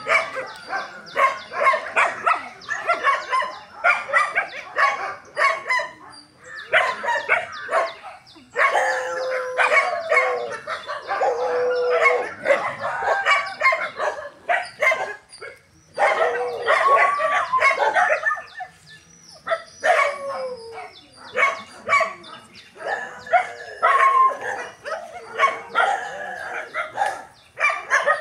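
A pack of street dogs barking and yelping almost without pause, with a few longer, drawn-out howls mixed in.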